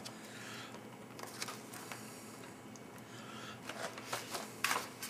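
MRE entree pouch crinkling and rustling as the chicken with salsa is squeezed out of it onto the rice, with scattered small clicks and a few louder crackles about four seconds in.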